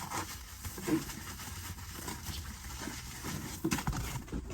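A dog making noise while a cardboard box is handled, with scattered light knocks and rustles and a few sharp clicks near the end.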